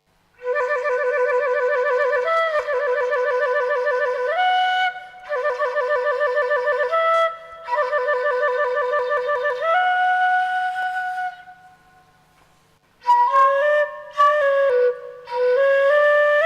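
Background music: a solo wind-instrument melody of long held, wavering notes in phrases. After a short pause about two-thirds of the way through, a quicker phrase begins.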